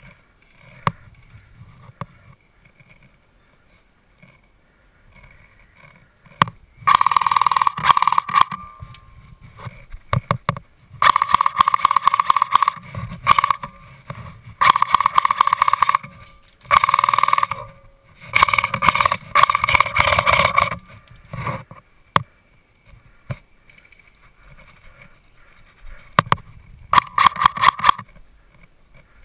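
Airsoft electric rifle (AEG) firing on full auto, close by, in six bursts of about one to two seconds each. The gearbox cycles rapidly and steadily within each burst.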